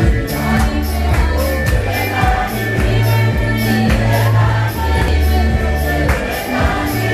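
Church congregation singing together, with a steady percussion beat about three times a second and sustained low bass notes beneath.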